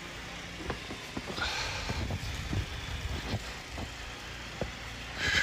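Low, steady rumble of a motor vehicle, with faint scattered knocks and a short hiss about a second and a half in.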